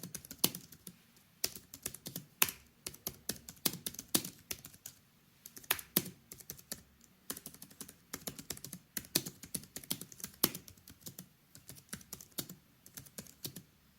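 Typing on a Logitech MX Keys low-profile scissor-switch keyboard: a quick, irregular run of soft key clicks with a few brief pauses, moderate in loudness.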